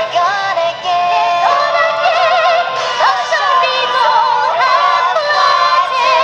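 Song with several singing voices holding long, wavering notes with heavy vibrato over an accompaniment; no clear words are sung.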